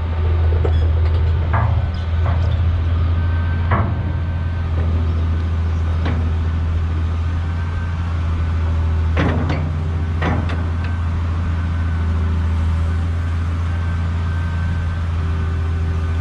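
Caterpillar 345B hydraulic excavator's diesel engine running steadily under load as the hydraulics raise the boom and curl the bucket. A few sharp metal clunks come from the working boom and bucket, the loudest two about nine and ten seconds in.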